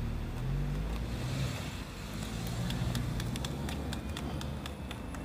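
Low, steady hum of a nearby vehicle engine, with a quick run of sharp clicks, about five a second, starting about two seconds in.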